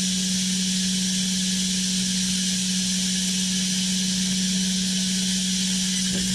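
Large wood-sawing machine running steadily: a constant low hum with a steady hiss over it.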